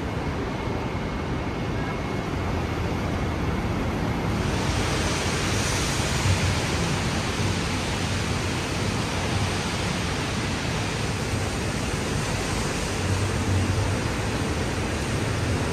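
Steady outdoor street ambience: an even rushing noise of passing traffic and air, turning brighter and hissier about four seconds in.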